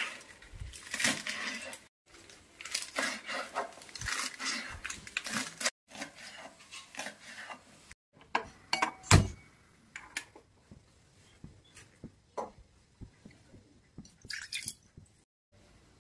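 A knife chopping fresh spinach leaves on a wooden cutting board, quick crisp cuts in short stretches through the first several seconds. Then a steel pot clanks once, loudly, about nine seconds in, followed by a few faint knocks.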